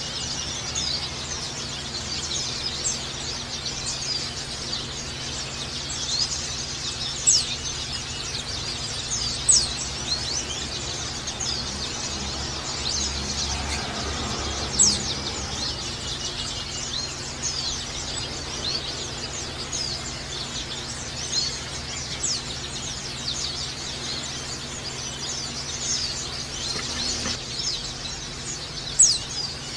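White-eye (pleci) singing in the rapid, continuous ngecal style: a dense stream of high, quick chirps, with a louder sharp chirp every few seconds.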